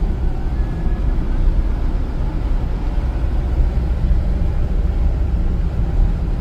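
Car driving along a road: steady engine and tyre noise with a deep, even rumble.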